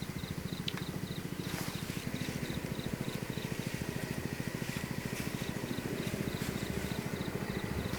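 A small engine running steadily at an even speed, with faint, regular high insect chirps behind it.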